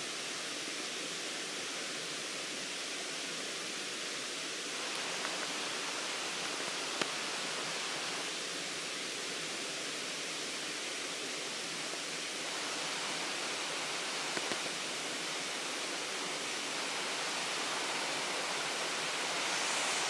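Steady rush of Kirindi Ella waterfall, thin streams of water running down and splashing over a broad rock face. The flow is low, with little rain lately.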